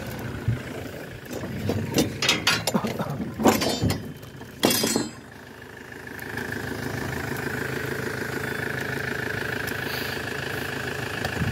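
Wooden boards and metal clattering with a few loud knocks, then about six seconds in the ferry's engine comes up and runs at a steady idle.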